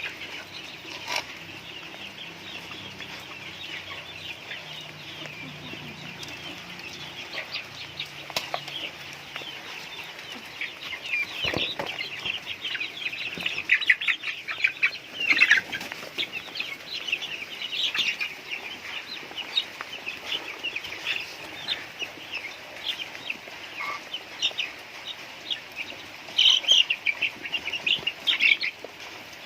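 A flock of chickens calling and clucking at feeding time, many short high calls overlapping throughout. A single sharp knock about eleven seconds in.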